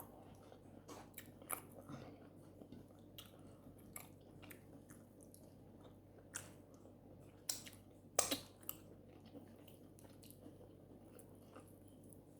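A person chewing food close to the microphone, faint, with scattered wet mouth clicks and smacks; a louder cluster of clicks comes about eight seconds in.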